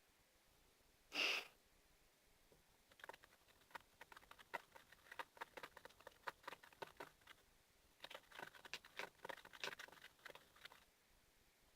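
Sticky, wet clicking and smacking from glue and lotion slime mixture being worked in a container, in two spells of rapid small clicks. About a second in there is a brief hiss or squirt.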